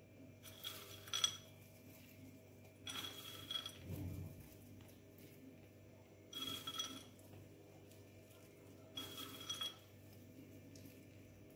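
Crushed walnut pieces and fingers clinking and rattling against a white ceramic bowl as a hand scoops nuts out of it, four times a few seconds apart, the bowl ringing briefly each time.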